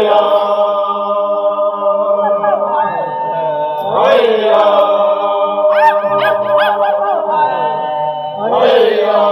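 A group of voices singing a chant-like song in harmony, holding long chords, with a new phrase sliding in about every four and a half seconds.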